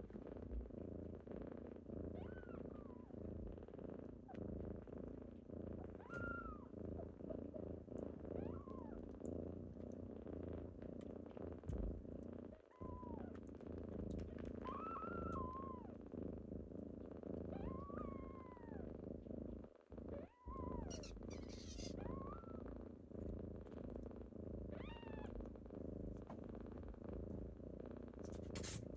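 Kittens purring steadily in a low, pulsing drone, with about ten short, high mews that rise and fall scattered through it. The purring breaks off briefly twice.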